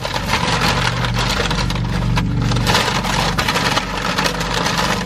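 Paper fast-food bag and its wrappers crinkling and rustling continuously as hands rummage through it.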